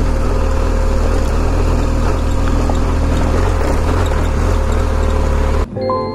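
BMW R 1250 GS boxer-twin engine running steadily while riding on a dirt road. About five and a half seconds in, it cuts off abruptly to organ-like music with held chords.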